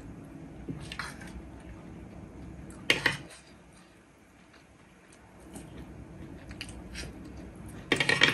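Metal spoon scraping and clinking against a ceramic plate while scooping up rice: short clatters about a second in and three seconds in, and a louder rattle of quick clinks near the end.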